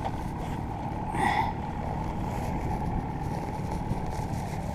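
Outboard motor running steadily on a small boat, a dense low rumble with a brief brighter burst about a second in.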